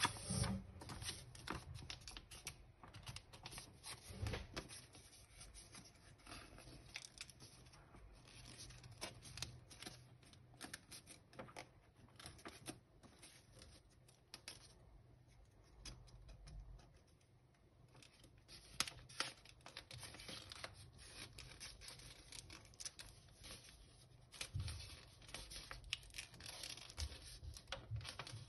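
A sheet of paper being folded and creased by hand: faint, crisp rustling and crackling as the paper is handled and the folds pressed down, easing into a lull about halfway through.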